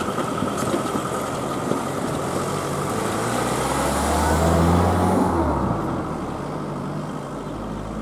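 Cars driving over a railway level crossing. A few light knocks come in the first two seconds as tyres cross the rails, and one car passes close by, its engine and tyres loudest about four to five seconds in before fading away.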